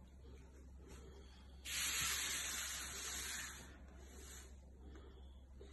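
A long, forceful breath let out with a hiss, starting suddenly about two seconds in and trailing off over about two seconds.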